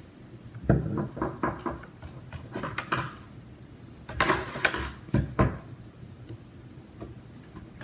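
Plastic headset parts being pried apart with a metal screwdriver or wrench: an irregular run of sharp clicks and knocks, in two clusters with a short pause between.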